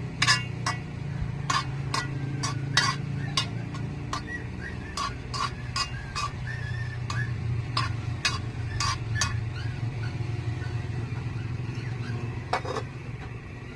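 A metal utensil stirring in a cooking pot, clinking against it in irregular sharp strikes, over a steady low hum.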